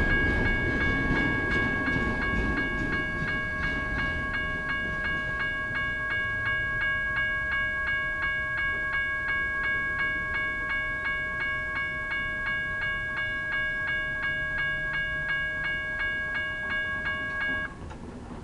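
General Signals type 1 electronic crossing bell ringing in steady pulses, about three strokes a second, over the low rumble of the last double-stack freight cars rolling by, which fades over the first few seconds. The bell cuts off near the end as the crossing clears and the gates start to rise.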